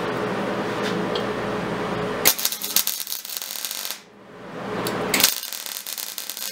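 MIG welding arc crackling and hissing as steel is welded. The arc strikes suddenly about two seconds in, stops briefly around four seconds, then strikes again and keeps going. A steady hum comes before the first strike.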